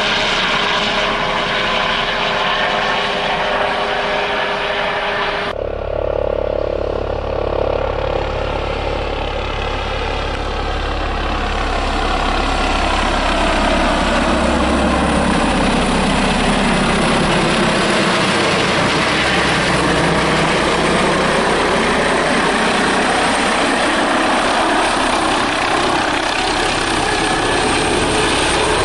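Airbus ACH145 (five-blade H145 D3) helicopter in flight: steady turbine whine and rotor noise. The sound changes abruptly about five seconds in, and its tones slide down in pitch midway as the helicopter comes in low.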